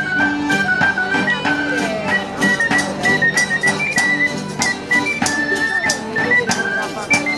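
Sicilian folk dance music: a high melody line over lower notes, with a quick steady percussive beat.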